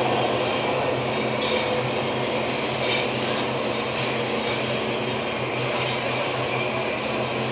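Budapest Metro line 4 train (Alstom Metropolis) running through a tunnel, heard from inside: a steady rumble of wheels on rail over a constant low motor hum, with a few faint higher squeals from the wheels.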